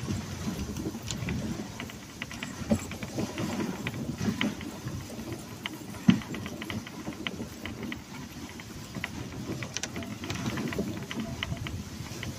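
A dog sled running over snow behind a husky team: a continuous uneven rumbling scrape from the runners, with many light clicks and rattles and two sharper knocks, about three and six seconds in.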